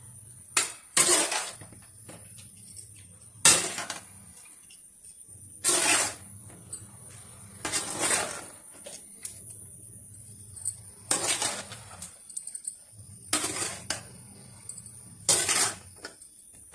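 A spoon scraping and knocking against the inside of a metal pressure cooker as cooked chicken biryani rice is stirred, about eight short strokes two to three seconds apart.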